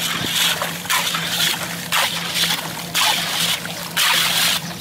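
Muddy water and sludge splashing and sloshing in a large metal basin as a worker swirls and scrubs it by hand, washing brass scrap residue. The splashes come in five surges, about one a second.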